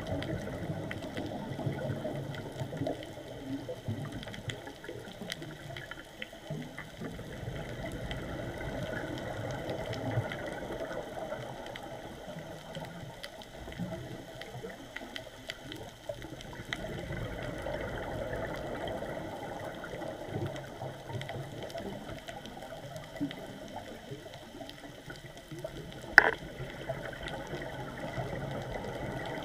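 Underwater reef ambience picked up through a camera housing: a steady, uneven low water noise with many faint scattered clicks. One sharp knock with a brief ring stands out near the end.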